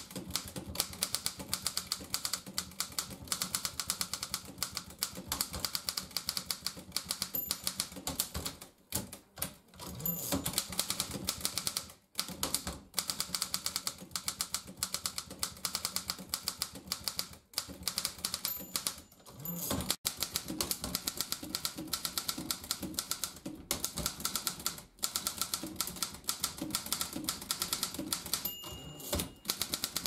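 Rapid, continuous keystrokes on a 1929 Continental Standard manual typewriter, with typebars striking the platen, broken by a few short pauses.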